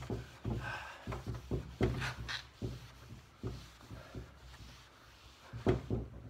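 Wooden table top being buffed by hand with a cloth after waxing: a quick run of rubbing strokes, about three a second, with dull knocks from the table. They pause briefly shortly before the end, then a few louder strokes follow.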